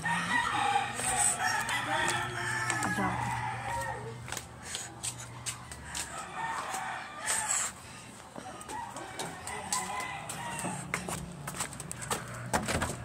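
A rooster crowing, one drawn-out call that rises and falls in the first few seconds, followed by scattered clicks and knocks from handling and walking.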